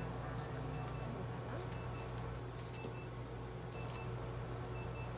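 Electronic beeper giving short, high double beeps about once a second, over a steady low electrical hum.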